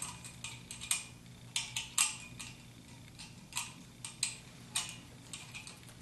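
Irregular light metallic clicks and taps, about a dozen, loudest about two seconds in: an Allen wrench being fitted to the bolts of an engine's timing pointer. A faint steady low hum runs beneath.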